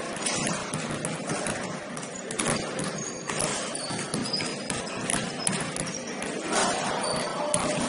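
Basketball dribbled on a gym floor: a string of bounces and footfalls knocking at an irregular pace.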